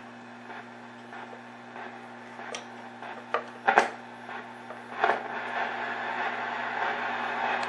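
1959 Philco Predicta Pedestal tube TV warming up: a steady hum and a faint hiss from its speaker, with a few sharp crackles, the loudest about four seconds in. From about five seconds the hiss grows louder as the set comes up.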